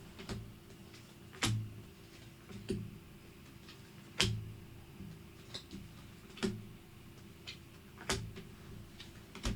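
Tarot cards being handled and set down on a table: soft taps about once a second, over a faint steady hum.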